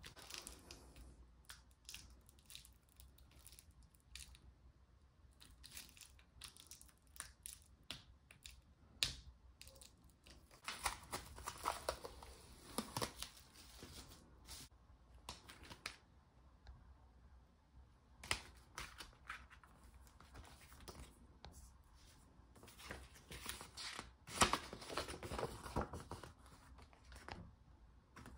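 Album packaging being opened by hand: wrapping tearing and crinkling in irregular bursts, with clicks and rustles of handling.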